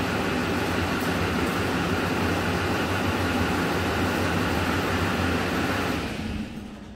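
The 6.6-litre Duramax LMM V8 turbo-diesel of a 2009 Chevrolet Silverado 2500HD idling steadily in park, then switched off with the key about six seconds in, its sound dying away over about a second.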